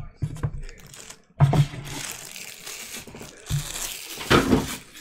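Hands handling plastic card holders and packaging: irregular rustling and crinkling, with louder crinkles about a second and a half in and again near the end.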